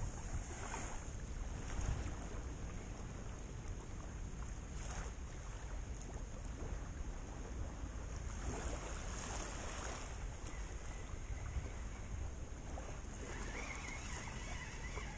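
Outdoor wind and surf noise: a steady rush with a few louder hissing surges.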